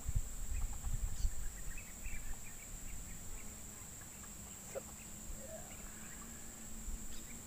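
Outdoor ambience of a steady high-pitched insect drone with scattered short bird chirps. Low rumbling bumps on the microphone come in the first second and a half.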